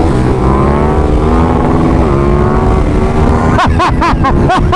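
KTM 1290 Super Duke R V-twin engine running hard at high revs in fifth gear, with wind rushing past the onboard microphone and a brief dip in pitch about two seconds in. Near the end, a quick series of short chirping sounds joins in.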